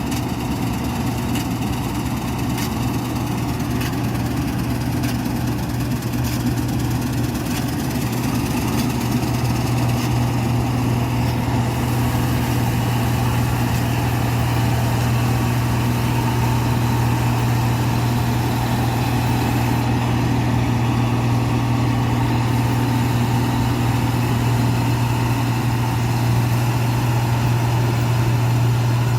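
New Holland 8070 combine harvester's engine running steadily with a strong low hum, a few light ticks over it in the first several seconds. It grows slightly louder about a third of the way in.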